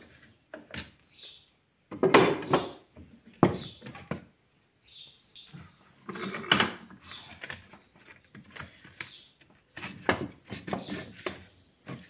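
Metal bar clamps clanking and rattling as they are loosened and taken off a small glued-up plywood box, with knocks of wood and metal. The loudest clatters come about 2 s, 3.5 s and 6.5 s in, and in a quick run near the end.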